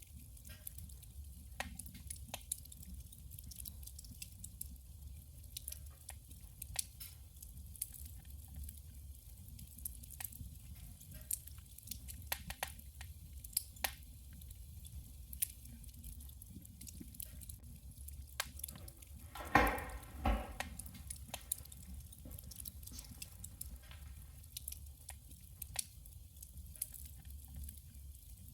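Firewood burning in a wood stove, crackling with scattered sharp pops over a steady low hum. About two-thirds of the way through, one louder, longer sound with a pitched hiss breaks out and dies away within a second or so.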